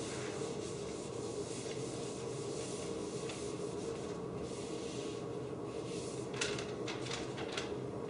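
Whiteboard eraser rubbing across the board, then a dry-erase marker writing in a few short, sharp strokes near the end, over a steady room hum.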